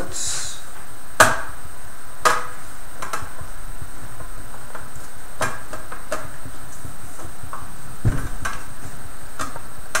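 Metal NAS enclosure being handled and its stuck side panel pushed at, giving scattered sharp clicks and knocks about once a second, with one heavier knock near the end.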